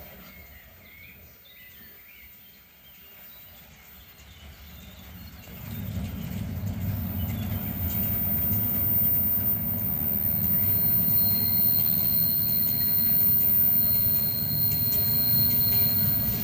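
Class 95 2-10-2 tank steam locomotive and its train approaching across a viaduct. The heavy low rumble of the train rises from about six seconds in and then holds steady, and a thin steady high squeal from the wheels joins partway through.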